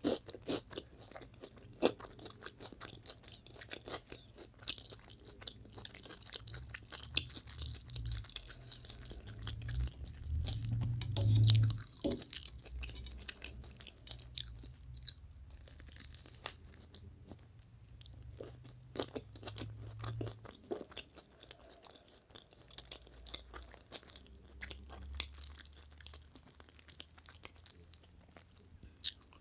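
Close-miked chewing of a toasted sandwich: many small crunches of the crisp toasted bread. There is a louder thump about eleven seconds in.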